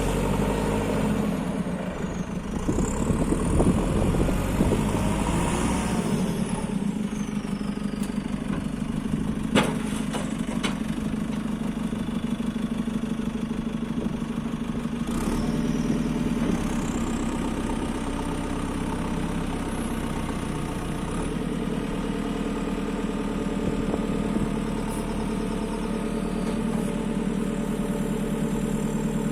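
JCB 3CX backhoe loader's diesel engine running steadily, with a couple of sharp knocks about ten seconds in.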